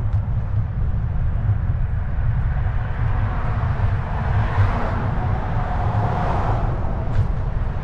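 Steady low rumble of an electric scooter ride on a handlebar-mounted microphone, with a car passing close by: its noise swells about four seconds in and fades near the end.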